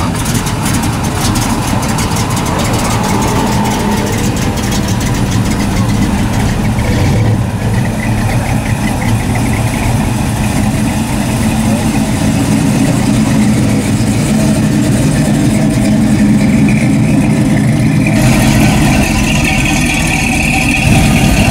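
Engines of classic American cars idling and rolling past one after another at walking pace, a steady low engine note with light throttle, with crowd chatter behind.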